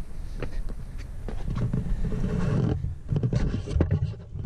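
Low rumble with scrapes, knocks and clicks from a handheld camera being moved and rubbed about as a person crawls under a truck.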